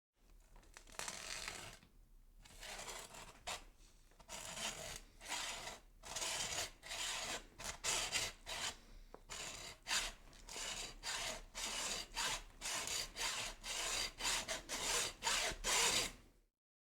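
Repeated rasping, scraping strokes, coming quicker and more regularly in the second half, then stopping abruptly near the end.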